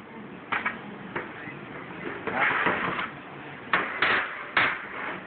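Aluminium angle bar being worked back and forth on an aluminium screen-printing frame to bed it into silicone: a few light knocks, a rough scraping rub about halfway, then three sharp clacks of metal on metal near the end.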